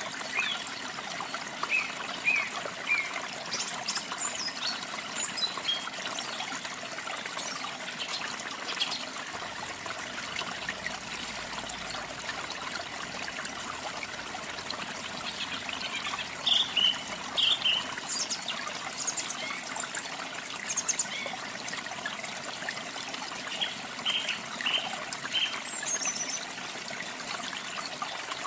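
Steady running water, with small songbirds giving short, scattered chirps over it, in little bursts now and then.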